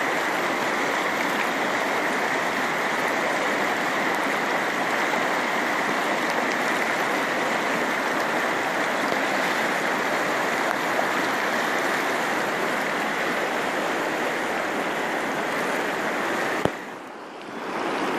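A swollen, muddy river in flood rushing steadily. Near the end there is a click, after which the rushing drops away for about a second and then returns.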